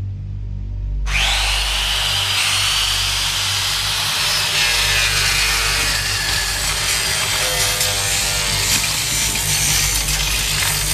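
Handheld electric circular saw switched on about a second in, its blade whining at speed and grinding against a man's bare stomach without cutting in. A low, steady musical drone sits underneath.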